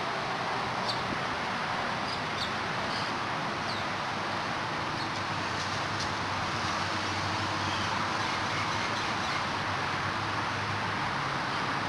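Steady outdoor background noise, an even hiss with a low hum under it, with a few faint, short high chirps in the first few seconds.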